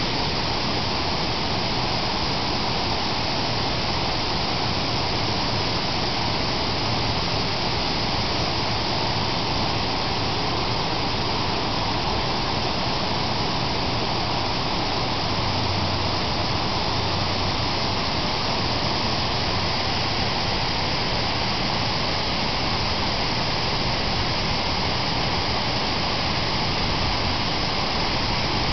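Artificial waterfall cascading into a pool, a steady, even rush of falling water.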